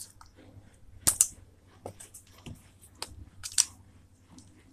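Slime squishing with short sharp pops and clicks as it is pressed by hand into its plastic tub. The two loudest pops come about a second in and about three and a half seconds in.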